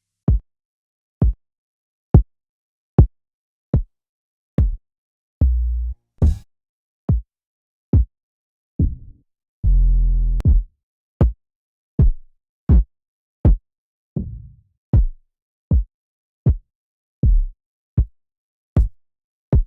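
Trap drum-kit samples played one at a time, about one a second with silence between: mostly short, punchy electronic kick drums, with a few longer pitched 808 bass hits among them, one of which slides down in pitch.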